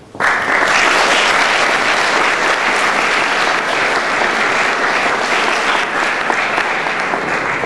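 Audience applauding, starting abruptly right after the speech ends and easing off slightly near the end.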